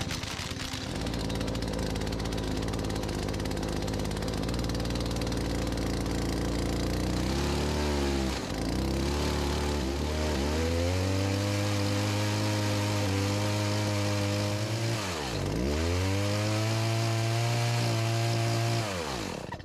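Poulan PR4218 two-stroke chainsaw engine running unevenly after a drill start, its speed sagging deeply twice and picking back up, then winding down and stopping near the end. It starts but is not running right.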